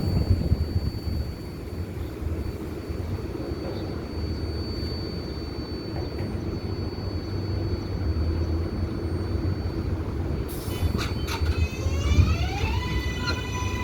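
R188 subway train on the Flushing line: a steady low rumble, then about ten seconds in a few sharp clicks and the traction motors' stepped whine, several tones rising in pitch together and levelling off as the train accelerates.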